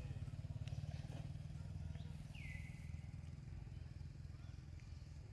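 Low, steady rumble of a small engine running, with a quick even pulse to it. About two and a half seconds in, a short call slides down in pitch and then holds.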